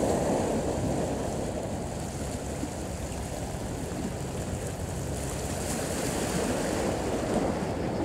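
Steady rushing noise of sea waves mixed with wind on the microphone.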